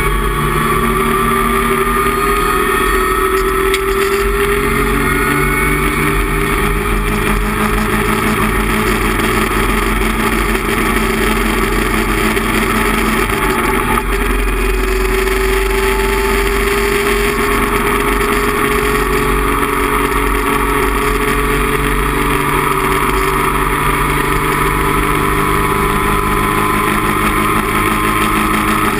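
Datsun 260Z race car's straight-six engine pulling hard at high revs, heard from inside the cockpit, its pitch climbing slowly as the car accelerates, with steady wind and road noise underneath.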